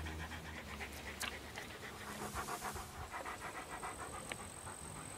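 A large dog panting with its mouth open, in quick, even breaths.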